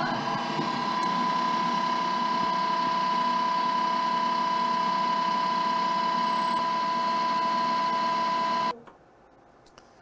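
Komax MicroLab 30 cross-section machine running its grinding and polishing cycle on a crimped contact, with a steady motor whine. It stops abruptly near the end as the cycle finishes.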